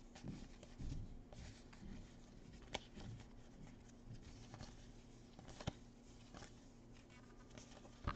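Faint rustling and sliding of baseball trading cards being shuffled through by hand, with a couple of light ticks as card edges knock together.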